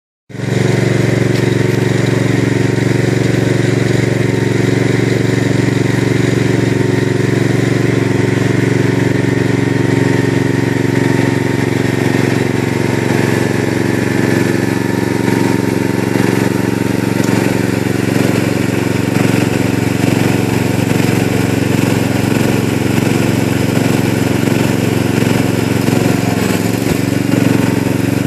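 Gravely 8163B walk-behind tractor's engine running steadily, getting a little louder near the end as the tractor comes close.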